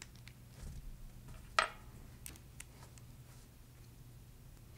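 Small hardware being handled: one sharp click about one and a half seconds in, then a few faint ticks, as a small screw is fitted through a Delrin plastic piece into an aluminium bracket.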